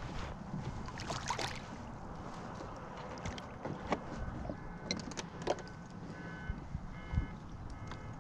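Handling noise aboard a fishing kayak: a steady low rumble with many sharp clicks and knocks from the hull and tackle. A few brief faint whines come and go in between.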